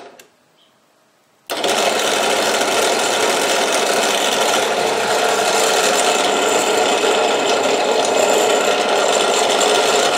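Einhell BT-BD 401 bench drill press running unloaded, its motor and belt drive giving a steady hum with the belts set for about 950 RPM. The sound cuts out abruptly at the start and is back at full level about a second and a half later.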